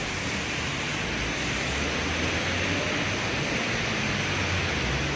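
Heavy rain falling steadily, a dense even hiss. A low rumble joins underneath about a second and a half in.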